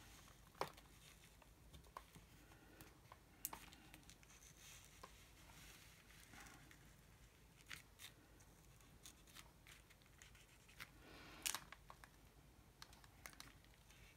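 Faint scratching and scattered clicks of a black paint pen drawing lines along the edges of a paper collage page, with a sharper tick about eleven and a half seconds in.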